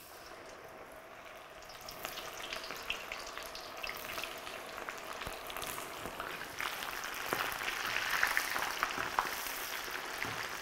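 Cornstarch-coated sweet corn kernels deep-frying in hot oil in a kadhai: a steady sizzle with many small crackles, getting louder about two seconds in.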